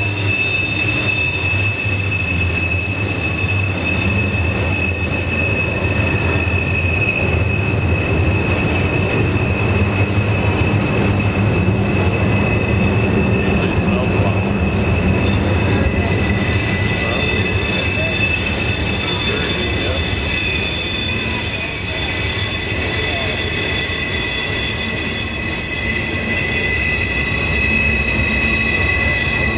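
Freight cars' steel wheel flanges squealing against the rail as a trash train rounds a sharp curve, over the steady rumble of the cars rolling by. The squeal is a held, high-pitched tone, and a second, lower squeal joins it about halfway through.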